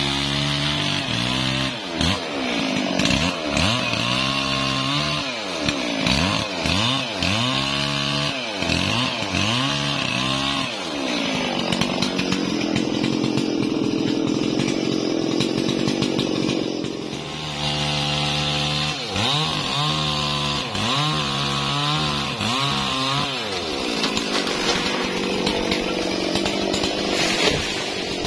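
Large two-stroke chainsaw engine revved up and down over and over, about once a second. It runs steadily for several seconds midway, then the revving starts again.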